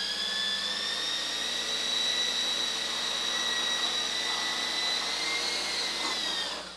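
Small electric coaxial RC helicopter's motors and rotors running at near-hover throttle while it scoots forward: a steady high whine that climbs in pitch over the first second, holds, then drops and dies away near the end.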